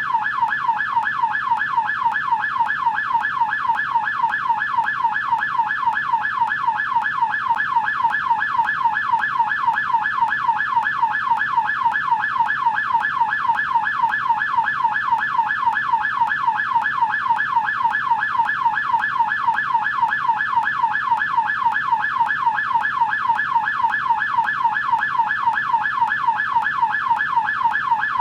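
American police car siren on its yelp setting: a fast, steady warble rising and falling about three times a second, without a break.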